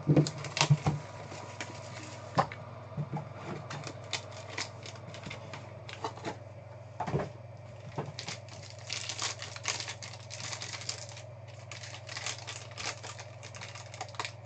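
Hands handling a cardboard trading-card box, with a few scattered clicks, then a foil card pack crinkling and tearing open, with rapid irregular crackles through the second half. A steady low hum runs underneath.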